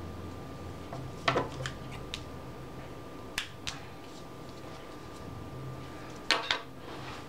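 Scissors snipping paper: a few short, sharp snips a little over a second in and again around three and a half seconds, then a louder cluster of clacks near the end.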